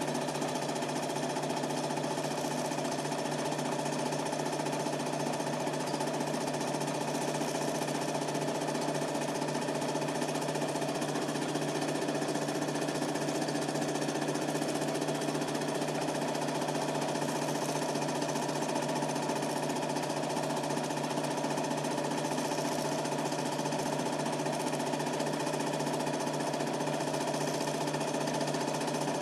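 Super 8 film projector running steadily: a fast, even mechanical chatter from the film transport over a constant motor hum.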